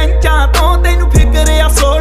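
Background music: a Punjabi pop song with a heavy, steady bass and a bending melody line.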